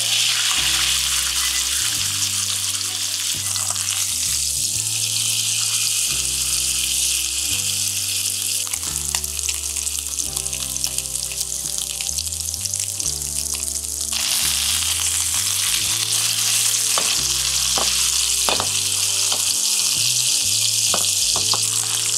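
Beef steaks searing in hot olive oil in a frying pan: a steady, loud sizzle that grows louder about fourteen seconds in, with a few short sharp ticks later on. Soft background music plays underneath.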